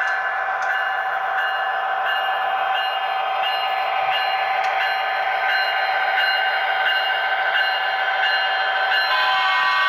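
HO scale Kato F40PH model locomotive and its passenger cars running on the track: a steady motor whine over wheel and rail noise with faint regular clicking. It gets slowly louder as the train approaches.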